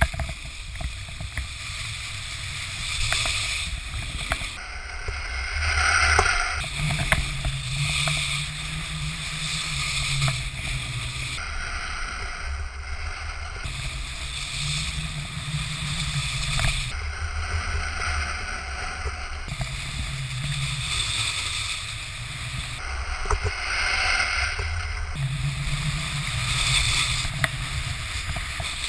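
Wind rushing over the microphone while snowboards slide and scrape over packed snow, with occasional short knocks from bumps in the run.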